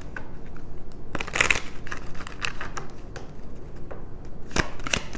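A deck of tarot cards being shuffled by hand: bursts of quick card flicks about a second in and again near the end, with scattered single card snaps between.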